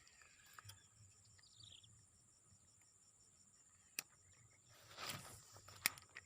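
Insects trilling faintly, a steady high whine with an evenly pulsing chirp. A sharp click sounds about four seconds in and another, louder one near the end, with a brief rustle between them.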